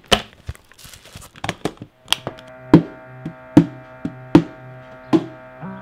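Clatter and knocks of household objects being picked up and handled. From about two seconds in, music with steady held notes and a regular beat comes in over it, a hit a little more than once a second.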